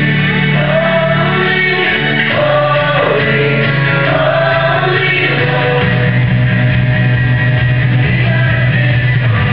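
A song with sung vocals over instrumental backing, held up by long low bass notes that change twice.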